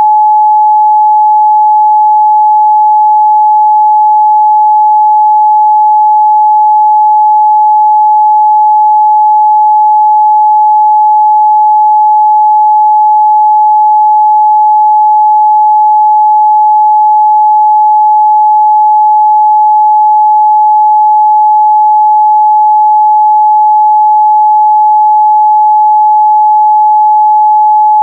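Continuous 852 Hz sine-wave test tone, a single pure steady pitch at constant loudness.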